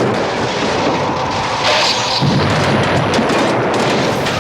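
Film sound effects of fire and explosions: a loud, continuous rush of flames broken by repeated booming blasts.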